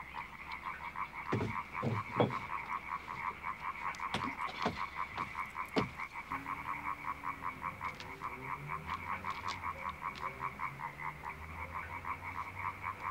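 Frogs croaking in a steady, rapid, evenly pulsing chorus, with a few sharp knocks in the first six seconds, the loudest about two seconds in.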